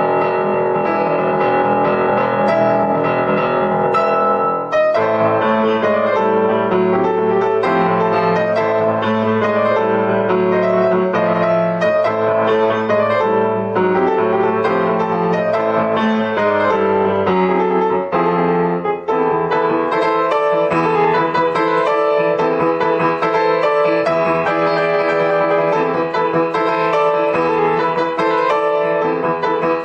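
Piano music playing without a break, a new phrase with low bass notes coming in about five seconds in and the music shifting again near nineteen seconds.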